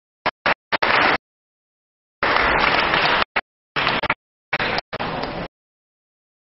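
Audience applause, a steady patter of many hands, cut up by abrupt dropouts into dead silence several times.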